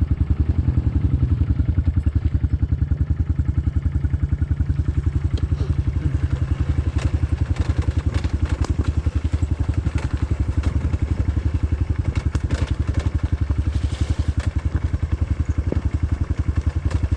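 Honda CRF125F's single-cylinder four-stroke engine running at low, steady revs, its exhaust pulsing evenly, with scattered clicks and knocks of the bike clattering over the trail.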